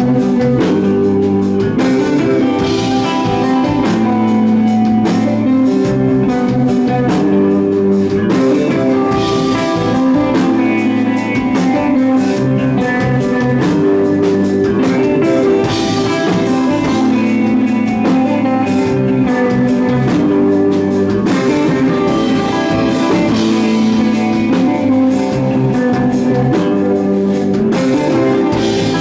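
Live rock band playing a psychedelic stoner-rock song: guitar over drums, loud and steady.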